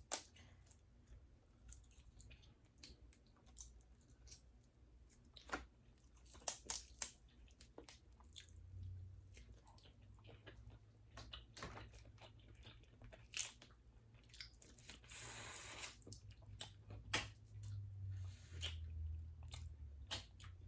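A person eating boiled crawfish and mussels up close to the microphone: scattered sharp clicks and cracks of shells and chewing, with one longer noisy patch about fifteen seconds in.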